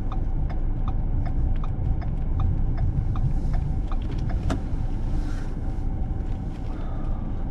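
Car rolling slowly over packed snow, heard from inside the cabin: a steady low rumble of engine and tyres. Over it the turn signal ticks evenly, about two and a half ticks a second, for the first five seconds or so, with one sharper knock partway through.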